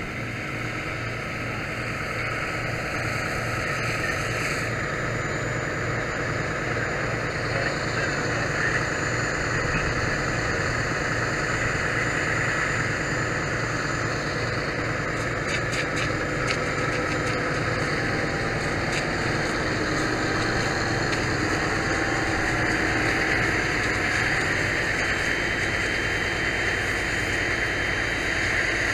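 Fire hose nozzle spraying a steady stream of water, a continuous hiss, with a fire engine's pump engine running underneath as a low, even rumble.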